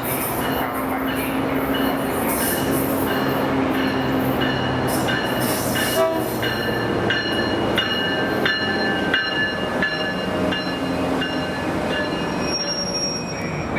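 A train rolling along the tracks with a steady rumble. From about five seconds in, the wheels squeal in short high tones, mixed with frequent clicks over the rail joints.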